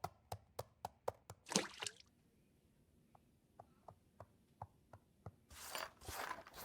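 A quick run of light, sharp taps that fade into fainter ticks, evenly spaced, followed by a soft rustle near the end.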